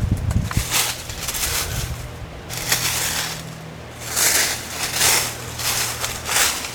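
Footsteps crunching through dry leaf litter, about one step a second, over a low steady hum.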